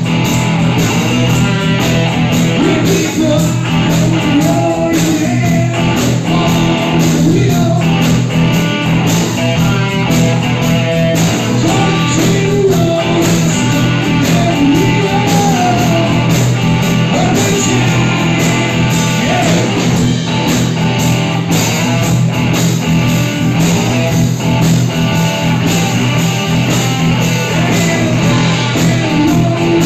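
Live rock band playing loudly: electric guitars and drums, with a singer's voice over them.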